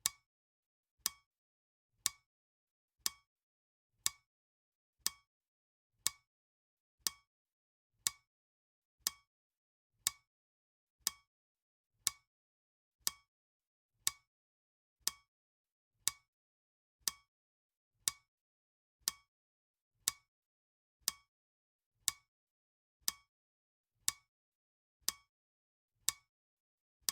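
Clock ticking steadily, one sharp tick each second with silence between: the ticking sound of a countdown timer.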